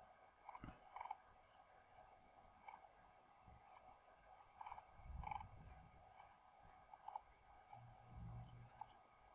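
Near silence: faint room tone with a few soft, scattered clicks from a computer mouse scrolling a web page.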